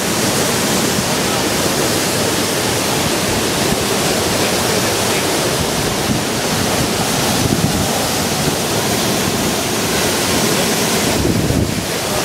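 Tropical-storm wind rushing loudly and steadily, buffeting the microphone.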